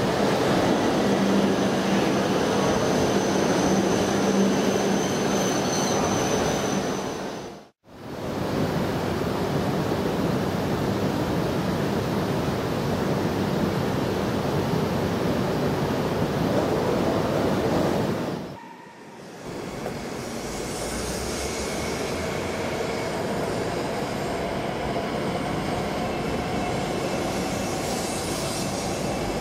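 Chinese high-speed electric multiple-unit trains (CRH380A and Fuxing CR400-series) running past at speed: a steady rush of wheels on rail and air. There are two brief breaks between takes, about 8 s and 19 s in; the last take is a little quieter, with a faint whine that rises slightly as the train approaches.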